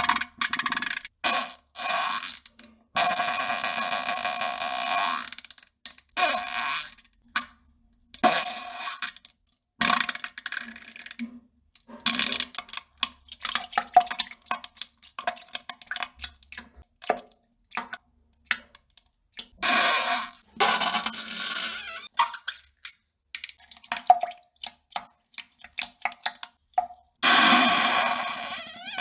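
A string of fart and poop sound effects played one after another. There are short pitched toots and longer sputtering, splattering bursts, separated by brief silent gaps; the longest burst runs about two seconds, a few seconds in.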